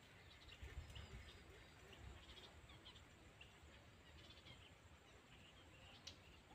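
Near silence: faint outdoor ambience with a low rumble and scattered small bird chirps, and one sharp click about six seconds in.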